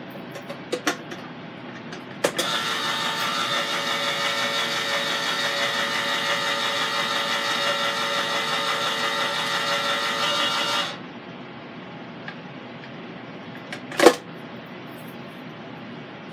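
Hamilton Beach smooth-edge electric can opener: a click as the lever is pressed down, then its motor runs steadily for about eight and a half seconds turning the can, and stops suddenly. A single sharp click about three seconds after it stops.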